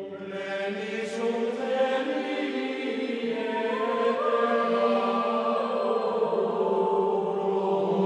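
Slow background music of long held, droning notes that shift in pitch every few seconds.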